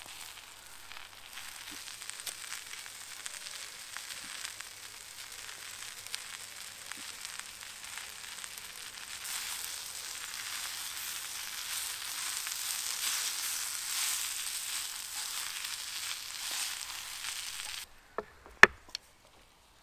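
Green beans and leafy greens sizzling in oil in a frying pan over a campfire as they are stir-fried, the sizzle growing louder midway. The sizzle cuts off abruptly near the end, and a few sharp knocks follow, one of them loud.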